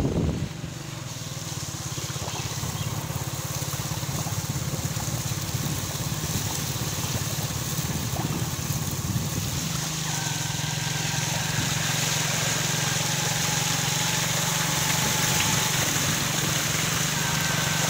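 A motorbike running steadily through ankle-deep floodwater, its wheel throwing up a hissing spray that builds over the first few seconds and then holds. A short thump right at the start.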